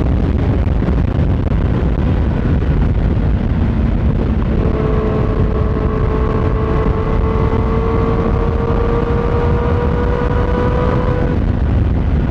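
Kawasaki ZX6R inline-four with an M4 GP19 aftermarket exhaust (dB-killer insert fitted), running at steady highway speed with a dense rumble of engine and riding noise. From about four and a half seconds in, a steady droning tone stands out in the exhaust note, creeping slightly up in pitch, and fades near eleven seconds.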